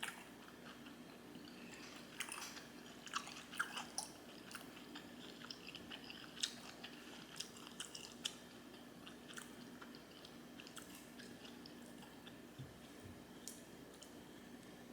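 A person chewing homemade sushi rolls close to the microphone: faint wet mouth clicks and smacks in irregular clusters, busiest in the first half and sparser toward the end.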